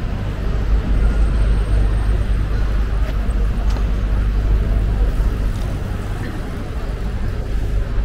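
City street ambience: a steady low traffic rumble, with faint voices of passers-by.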